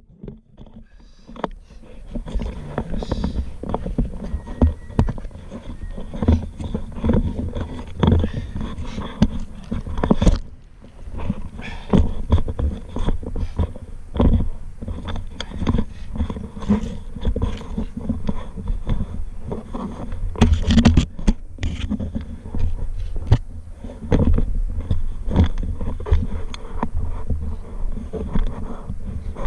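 Loose soil and stones being dug out close by: irregular scraping, crumbling and knocking of dirt, with heavier knocks now and then.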